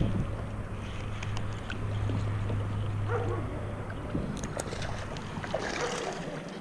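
A baitcasting reel being cranked while a hooked bass is fought in. A steady low hum with scattered light ticks stops about six seconds in.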